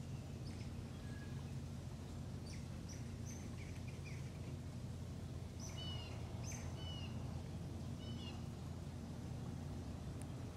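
Birds calling in short chirps, a few scattered notes and then a clearer cluster a little past the middle, over a steady low background rumble.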